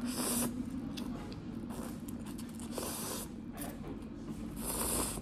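A person slurping instant cup noodles from chopsticks: three slurps of about half a second each, with a few small clicks between.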